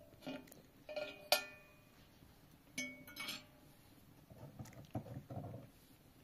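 A few light metallic clinks and knocks, each ringing briefly, then softer knocking and rustling about two-thirds of the way through.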